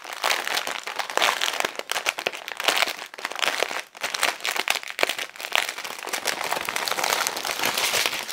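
Clear plastic packaging crinkling and rustling as it is handled and pulled off a strip of diamond-painting bead bags, with a brief lull about four seconds in.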